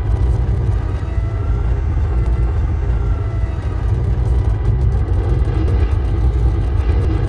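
N-1 starfighter engine sound effect heard from inside the cockpit: a steady deep rumble, with faint thin tones that swell and fade about a second in.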